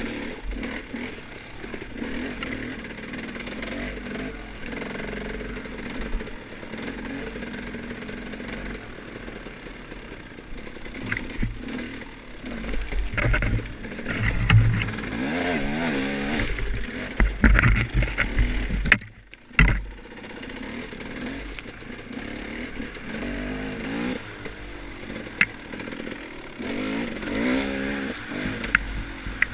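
Dirt bike engine revving up and down repeatedly, with scattered knocks and clatter; the engine note drops away briefly a little past the middle.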